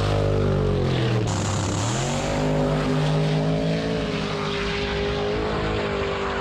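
ProCharger-supercharged, carbureted 540 cubic-inch big-block Chevrolet V8 in a drag car, running at high revs during a burnout. About a second in, the revs drop sharply, then climb again and hold a steady note.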